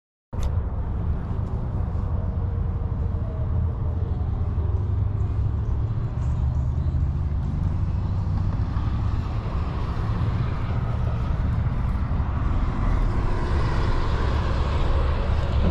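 Steady low rumble of road traffic mixed with wind on the microphone, with a vehicle going by louder over the last few seconds.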